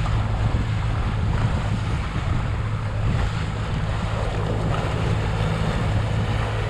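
Boat engine running steadily under way, a low even hum, with wind buffeting the microphone and water rushing past the hull.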